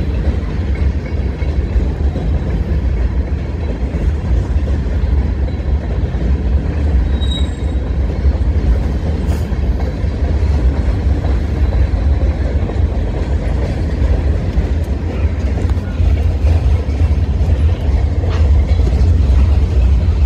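Freight cars of a Norfolk Southern mixed manifest train rolling past: a steady, heavy rumble with a few faint clicks from the wheels, growing a little louder near the end.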